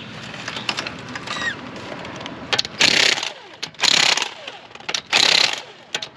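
Pneumatic impact wrench (a 1/2-inch Ingersoll Rand) hammering in three short bursts about a second apart, running lug nuts down on a refitted wheel. Before the bursts there are light clicks and rattles.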